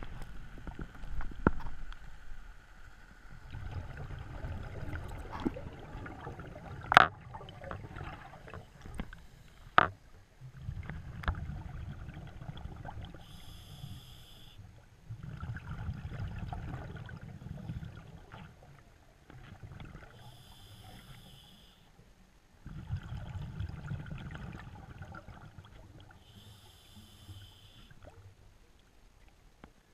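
Scuba diver breathing through a regulator underwater: a short hiss on each breath in, then a rumble of exhaled bubbles for two to three seconds, repeating about every seven seconds. A few sharp knocks come in the first third.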